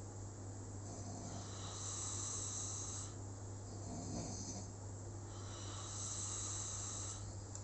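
Slow, regular snoring: hissy breaths swelling and fading about every two to three seconds, over a steady low hum.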